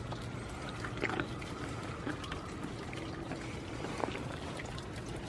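Rainwater dripping and trickling, with a few soft clicks about a second in and again near four seconds.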